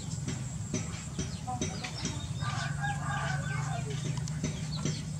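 Chickens clucking, with a rooster crowing for about a second midway through, over a steady low hum and scattered short clicks.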